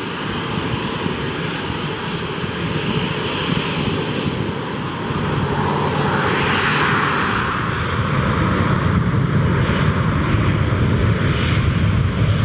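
Fixed-wing aircraft engines running, a steady noisy sound that swells about six seconds in, then a deeper rumble that grows louder toward the end.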